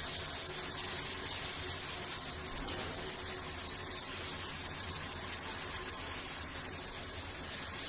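Steady rush of running water, an even hiss without breaks.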